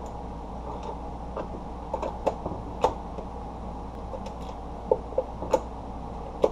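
Irregular small sharp clicks and ticks of a screwdriver and small screws being driven back into a plastic Spektrum DX6 transmitter case, over a steady low hum. The clicks come in two loose groups, about two seconds in and again near the end.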